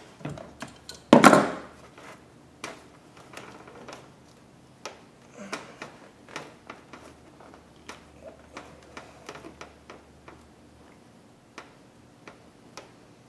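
Hands working a rubber coolant hose loose from a plastic radiator overflow bottle: one loud clatter about a second in, then scattered light clicks and rubbing as the hose is twisted free.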